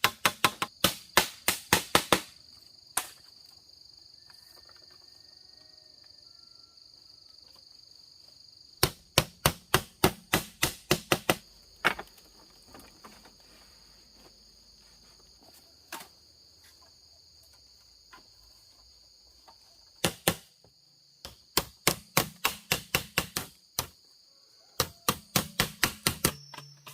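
Wood being chopped or struck with a hand tool in quick runs of sharp blows, about four to five a second, with pauses of several seconds between runs. Insects chirp steadily in the background.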